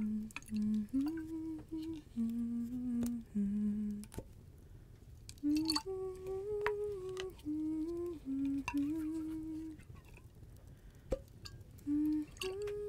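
A woman humming a slow, wordless melody of held notes, with sharp light clinks and taps every second or two.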